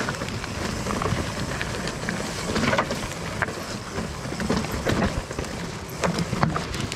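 Nordest Bardino steel hardtail mountain bike rolling over a rocky trail: tyre noise with many short knocks and rattles from the bike over rocks and roots.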